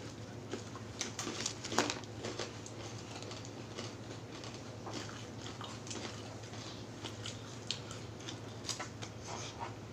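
Close-up eating sounds: roast chicken being pulled apart by hand on crinkling aluminium foil, with chewing and irregular small clicks and crackles, one sharper crack about two seconds in. A steady low hum underneath.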